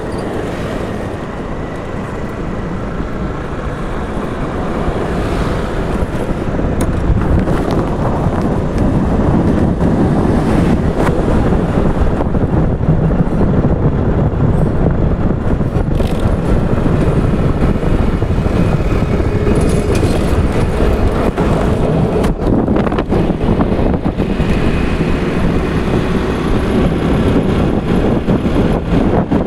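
Honda scooter being ridden along a road: a steady rush of engine, tyre and wind noise on the microphone, growing louder about seven seconds in and then holding level.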